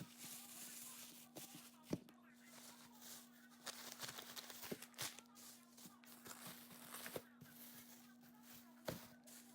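Near silence: a faint steady hum with a few soft scattered taps or clicks.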